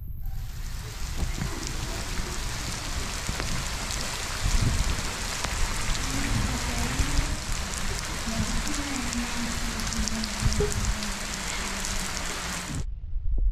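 Heavy rain falling steadily on the ground and roofs, with many sharp drop impacts close by. It cuts off abruptly near the end.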